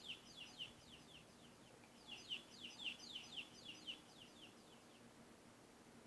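Baby chick peeping: a run of quick, high, falling peeps, about four or five a second, in two bouts that stop a little past the halfway mark.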